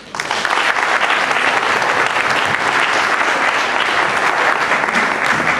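Audience applauding a speech, with many hands clapping together. It starts abruptly, holds steady, and eases off near the end.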